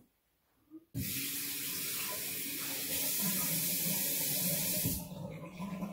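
Zurn Aqua-FIT touchless sensor faucet switching on when hands go under it: the water starts suddenly about a second in and runs in a steady stream into the sink basin, then falls away to a quieter splashing near the end.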